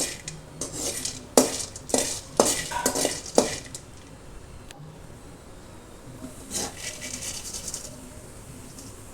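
A spatula scraping and knocking against a pan as cardamom pods are dry-roasted and stirred. There is a quick run of about eight strokes in the first three and a half seconds, then softer stirring with a short rattle about two-thirds of the way through.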